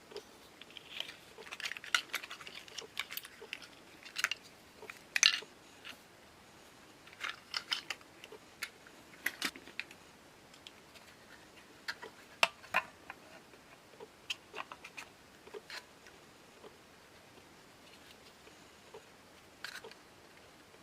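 Irregular light clicks, taps and small scrapes of lantern parts being handled during disassembly, with the sharpest taps about five seconds in and again about twelve seconds in.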